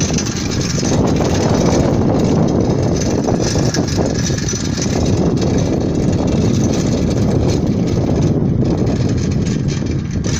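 Loud, steady rumble of a vehicle in motion, with no distinct knocks or pitch changes.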